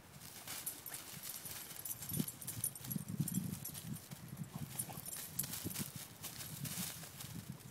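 Irregular rustling and crackling of dry fallen leaves as a Brittany dog noses and paws through the leaf litter.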